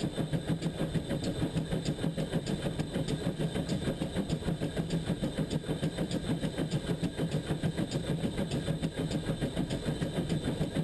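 GWR pannier tank steam locomotive running along the line, its exhaust beats coming rapid and even over a steady low rumble of the engine and wheels on the track.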